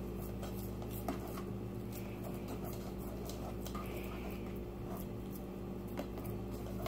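Hands patting and pressing raw ground-beef meatloaf mixture into a pan to shape the loaf: soft, scattered taps, over a steady low hum.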